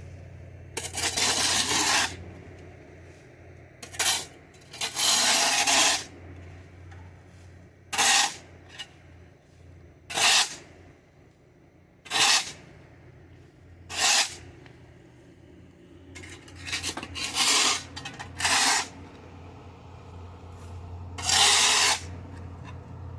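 Shovel scraping across a concrete slab as dirt is scooped off it: about ten strokes a couple of seconds apart, some short, a few lasting about a second.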